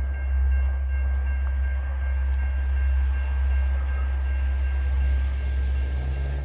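Approaching diesel freight train led by Illinois Central EMD SD70 locomotives: a steady low rumble, with the locomotives' engine note coming in and rising in pitch about five seconds in.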